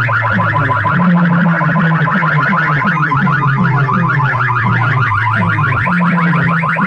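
DJ competition track played loud through a large loudspeaker sound system: a rapid, alarm-like repeating chirp over sustained low bass notes that shift in pitch a couple of times.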